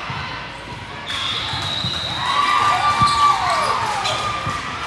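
Athletic shoes squeaking on the gym court floor in short rising and falling chirps as volleyball players move during a rally. A sharp smack comes about three seconds in, amid voices around the hall.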